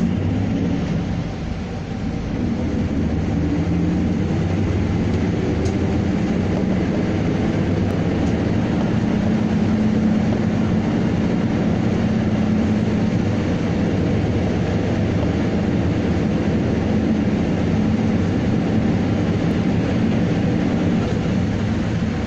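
Steady engine drone and travel rumble heard inside a moving vehicle's cabin, dipping briefly about a second in and then holding level.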